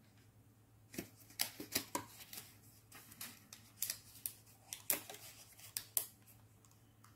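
Plastic packaging of a set of embroidery needles being handled and worked open to get a needle out: a string of irregular small clicks and crackles, starting about a second in.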